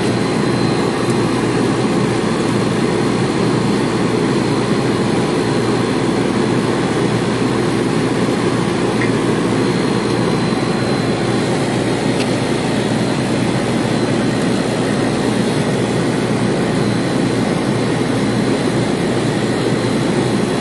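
Steady, loud drone of running machinery that holds even throughout, with a faint high whine above it.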